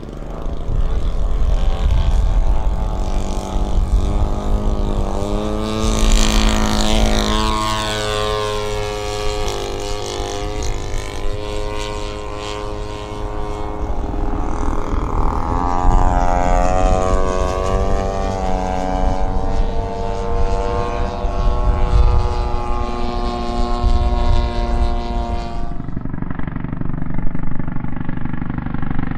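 Engine and propeller of a large-scale radio-controlled warbird model running at high power through take-off and flight, its pitch falling and rising as it flies past, with wind rumbling on the microphone.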